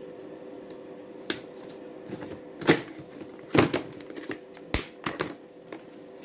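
Hard plastic seed-organizer case being handled: its compartment lids knock and click open, several sharp irregular clicks with the loudest in the middle.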